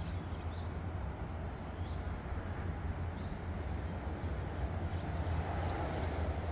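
Steady low rumbling noise with a hiss over it, swelling slightly near the end.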